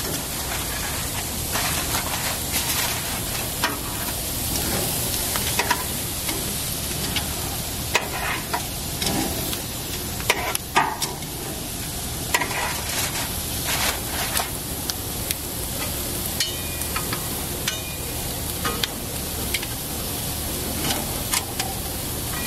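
Seafood sizzling on hot grill grates, a steady hiss, with scattered clicks and taps of metal tongs against the grate and pans as the food is handled.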